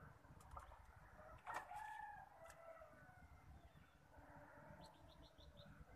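A rooster crowing faintly once, about a second and a half in. Near the end comes a short run of quick high ticks.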